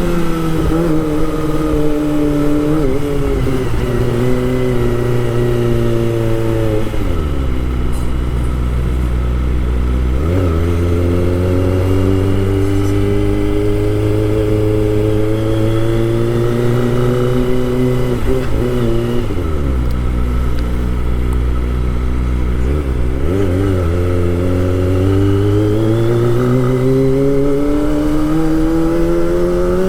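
Kawasaki Ninja ZX-25R's 250 cc inline-four engine under way, its note falling over the first several seconds and running low and steady, dipping again twice in the middle, then climbing steadily over the last few seconds as the bike accelerates.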